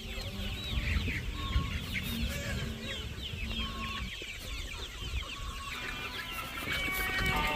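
A large flock of chickens clucking, with many short, high, falling peeps from the young birds all through. Steady music notes come in near the end.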